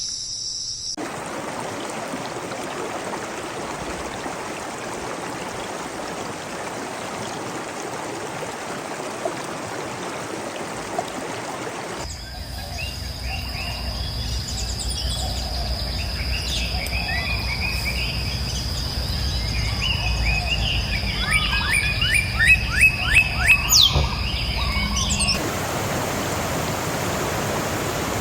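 Rainforest ambience. For about the first twelve seconds there is a steady rushing hiss like flowing water. After that, birds call and chirp over a steady high insect tone, with a quick run of repeated chirps near the end. Then the rushing hiss returns.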